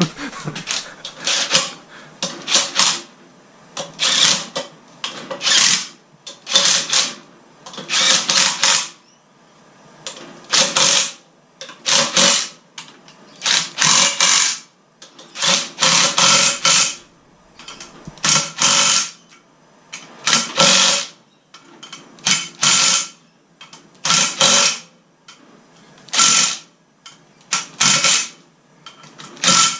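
Hand ratchet wrench being cranked in repeated strokes on the motorcycle, a burst of ratchet clicking about every one to two seconds.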